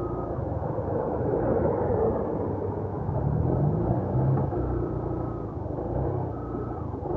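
Yamaha YTX 125's single-cylinder four-stroke engine running while riding, with wind noise over it; the engine note climbs about three seconds in as it speeds up.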